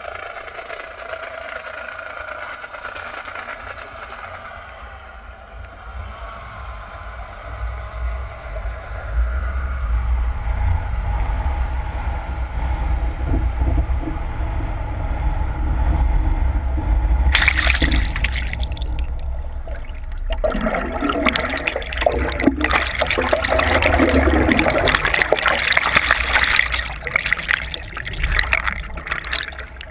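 Underwater sound of water rushing past a GoPro housing as it is towed, with a steady low rumble and, early on, a faint gliding whine of the towing boat's engine. From a little past halfway, dense bubbling and churning water takes over and becomes the loudest part, with a brief lull just after it starts.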